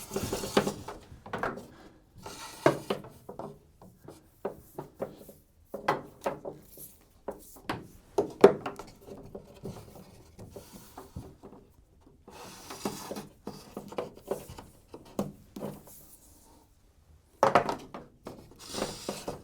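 Irregular clinks, knocks and rubbing as a short metal chain is handled and wrapped around a ceiling hook to hang a heat lamp, with a longer rustling, scraping stretch near the end.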